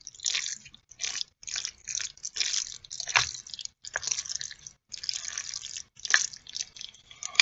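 Wooden chopsticks mixing rice noodles into thick black bean (jajang) sauce: a string of short, wet, sticky stirring sounds about twice a second, with a few sharp clicks of the chopsticks.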